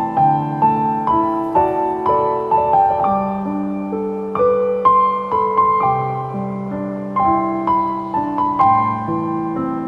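Soft instrumental Christmas piano music: a gentle melody of single notes over held chords.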